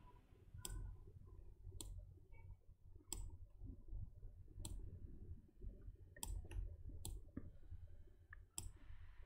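Faint computer mouse clicks, single and irregular, about a second or more apart, over a low room hum.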